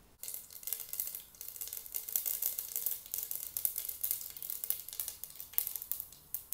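Mustard seeds sizzling in hot oil and ghee, with a dense crackle of tiny pops as they start to splutter. It begins suddenly just after the start as the seeds hit the oil.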